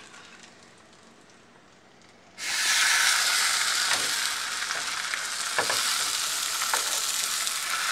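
Potato tacos soaked in red guajillo sauce sizzling in hot oil in a frying pan, the sizzle starting suddenly about two and a half seconds in and staying loud and even. A few faint clicks come as a metal spatula moves them in the pan.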